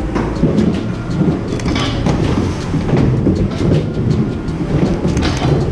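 Skateboard wheels rolling and rumbling across the skatepark ramps, with scattered clacks.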